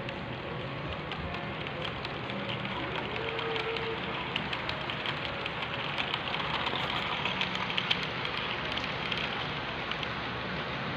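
Model train of passenger coaches rolling past on its track: a steady running rumble with many small rapid clicks from the wheels on the rails, the clicks thickest about halfway through.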